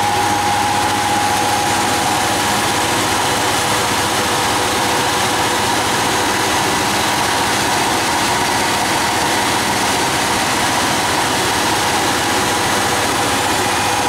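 Car air-conditioning bench running steadily, compressor and condenser fan giving a constant hum with a whine over it, while the compressor draws the refrigerant from the sight glass back in through the open low-pressure valve.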